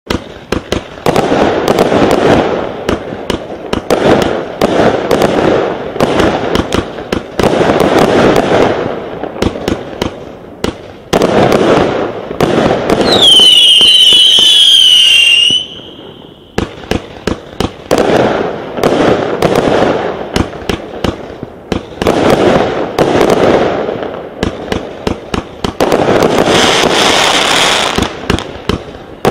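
A "Lion" 60-shot, 25 mm fireworks cake firing in rapid volleys, with shot after shot launching and bursting into sharp bangs and crackle. About halfway through, a loud wavering whistle falls in pitch for a couple of seconds.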